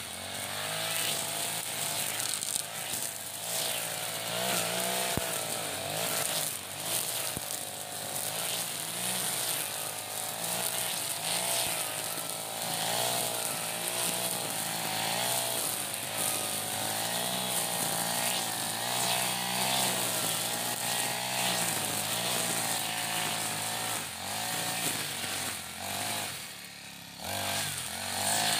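iPower EH40 four-stroke backpack brush cutter running at high revs, its nylon-line trimmer head cutting through grass and weeds. The engine pitch wavers up and down as the throttle is worked, and dips briefly near the end.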